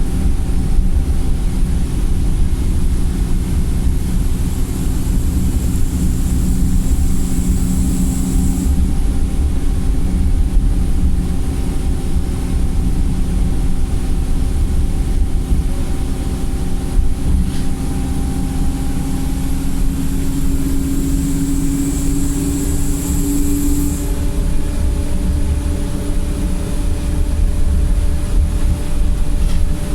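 Wright StreetLite single-deck bus heard from on board, its diesel engine running under load in limp mode with a steady drone. A high whine rises and then cuts off suddenly twice, about a third of the way in and again past the three-quarter mark.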